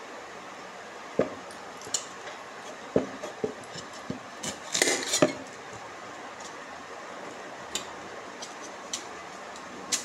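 Metal kitchen utensils and cookware clinking and knocking: a few separate knocks, a short burst of clattering about five seconds in, then scattered taps.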